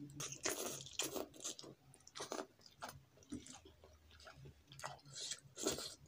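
A person slurping and chewing wet instant noodles (Maggi) eaten by hand, in irregular bursts of mouth sounds with short pauses between.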